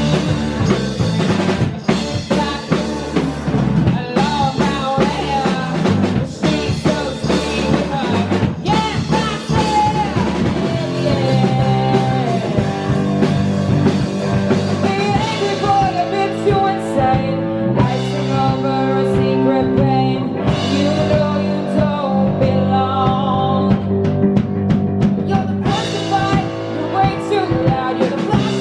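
Live rock band playing through a loud PA: drum kit, electric guitars and bass. The playing is dense and hard-hit at first, and settles into more sustained chords with wavering lead lines about ten seconds in.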